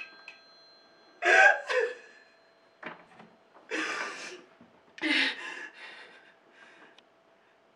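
A woman sobbing: several short, broken cries and gasping breaths, with a faint steady hum underneath.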